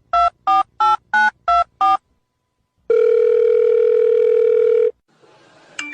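Telephone keypad dialling: seven quick two-tone beeps, then, after a short pause, one steady ringing tone of about two seconds as the call rings out.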